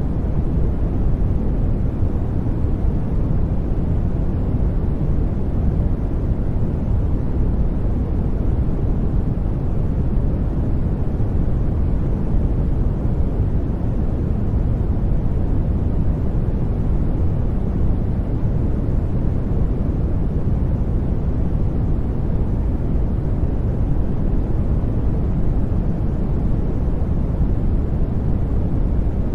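Steady synthetic noise from a noise generator, sold as white noise. It is deepest in the bass and thins out toward the treble, so it sounds like an even, deep hiss, unchanging throughout.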